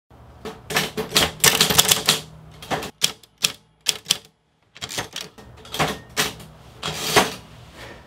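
Typewriter keys striking in uneven bursts: a quick flurry of strokes, then slow single pecks, a brief pause about four seconds in, and another run of strikes. The uneven rhythm is that of hesitant, struggling typing.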